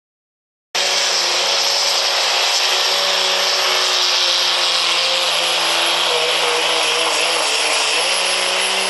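Second-generation Dodge Ram's turbocharged Cummins diesel running flat out under full load, pulling a weight-transfer sled: a steady engine note with a thin high whistle over it. Right at the end the engine drops off and the whistle falls in pitch.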